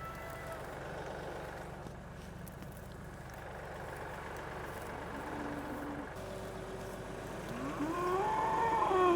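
Highland cow mooing: one long call starting about two thirds of the way in, rising and then falling in pitch, over a steady low engine hum.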